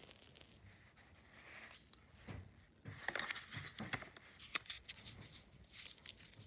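Faint handling noise around a clear-plastic Nerf blaster and foam darts: a short high hiss of rustling about a second in, then a run of small clicks and taps.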